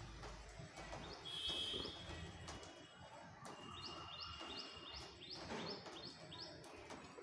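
A small bird chirping a run of short, evenly spaced high notes, about two or three a second, through the second half, over a faint background with a few light clicks.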